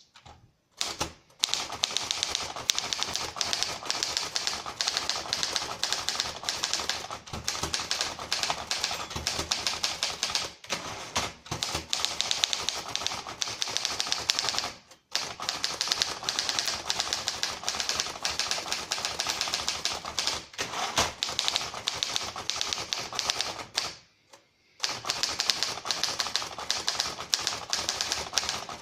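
Triumph Standard 12 manual typewriter being typed on: a fast, continuous stream of key strikes, broken by brief pauses about 15 seconds in and again about 24 seconds in.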